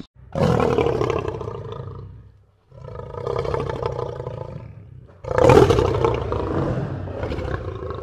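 Lion roaring: three long roars with short gaps between them, the third the loudest.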